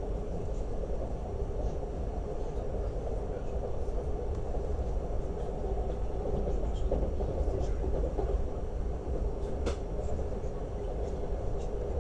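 A Lastochka (Siemens Desiro RUS) electric train running, heard from on board: a steady deep rumble of wheels on rails, with a few faint clicks.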